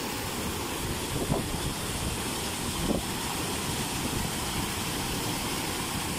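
Steady rush of water gushing out through a dam's sluice gate and splashing into the shallow, foaming channel below.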